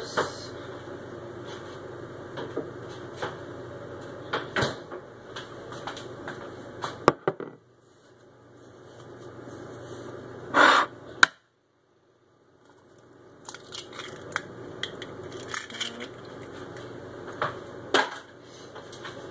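Scattered light clicks and knocks of kitchen items being handled on a countertop over a steady background hum. About ten and a half seconds in there is a louder short clatter ending in a sharp click, then the sound cuts out completely for about a second.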